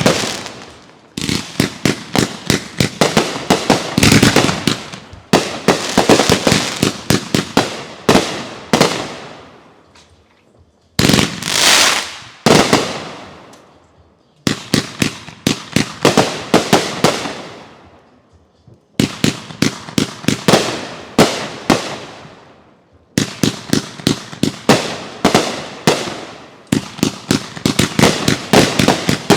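Consumer fireworks going off in rapid volleys of sharp bangs and crackles. The volleys come in about eight bursts of a few seconds each, each dying away before the next one starts.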